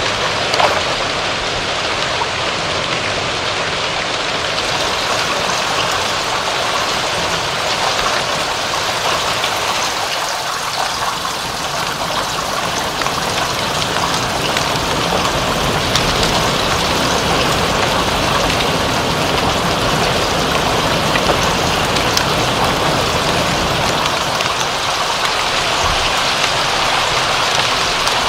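Steady rain falling, a dense even hiss with fine scattered drop ticks.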